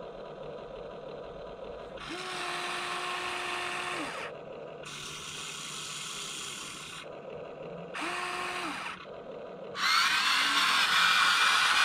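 Electric motors of a Huina 1593 RC excavator whirring in short bursts of one to two seconds, some with a steady whine, as the machine moves. Near the end a much louder, rough buzzing starts and keeps going.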